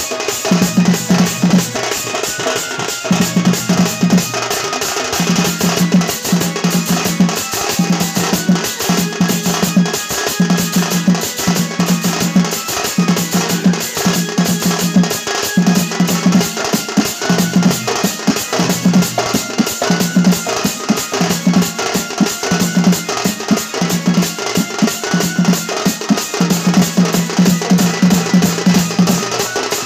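Sambalpuri folk drumming for a danda dance: dhol drums beaten with a stick in a fast, dense rhythm. A deep drum note pulses in a regular repeating pattern underneath.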